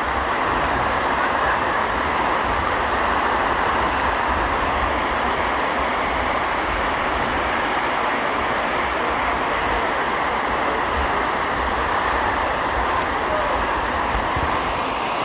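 Steady rush of falling water from a large waterfall, an even unbroken noise at a constant loud level.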